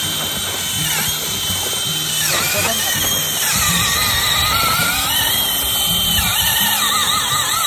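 Power drill driving an ice auger, boring a hole through lake ice, its motor running continuously under load, with background music playing over it.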